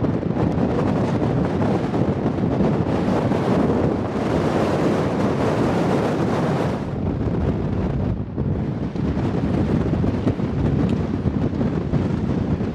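Strong wind buffeting the microphone: a loud, steady rushing that dips briefly a few times.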